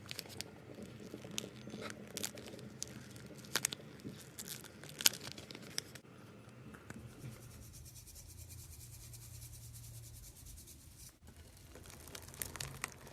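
Slime being squeezed and stretched by hand, with irregular sharp clicks and pops of trapped air over a wet, crinkly rustle. The pops are densest in the first half, and the sound turns softer and duller after about seven seconds.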